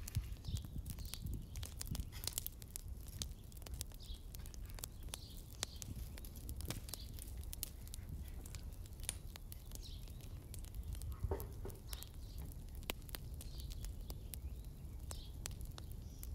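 Open wood fire crackling under a cooking pot, with many irregular sharp pops, over a steady low rumble. Faint bird chirps come every second or two.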